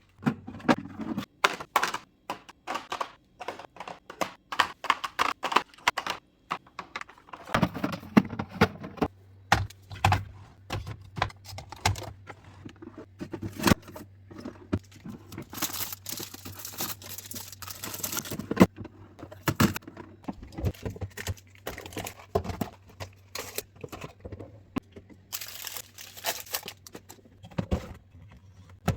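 Groceries and plastic organizer containers being handled and set down: a long string of clicks, taps and knocks, with spells of crinkling plastic packaging. A steady low hum comes in about a quarter of the way through.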